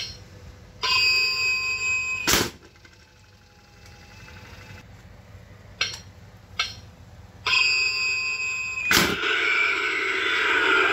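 Battery-powered Halloween animated toaster prop: a click as it is set off, a steady electronic alarm tone for about a second and a half, then a loud clack as it pops and cuts off. Set off again with two clicks, it sounds the same tone and pops with another loud clack as the skeleton hand shoots up, and its recorded voice track starts. The early cut-off is a fault the owner says makes it act as if its batteries were low.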